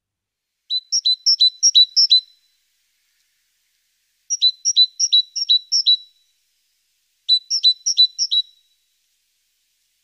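Great tit singing: three phrases of quickly repeated two-note figures, each a higher note dropping to a lower one, with short pauses between the phrases.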